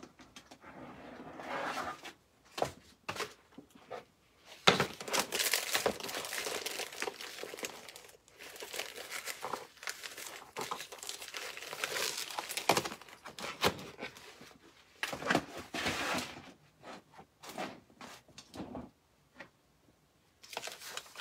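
Plastic bags and packaging crinkling and rustling as hands rummage through a plastic storage bin for a disposable piping bag. The rustling comes on and off, with a long stretch in the first half and shorter bursts later.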